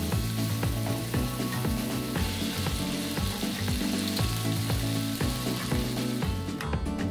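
Chicken thigh pieces sizzling in hot olive oil in a frying pan, with a wooden spatula stirring them; the sizzle thins out near the end. Background music with low steady notes runs underneath.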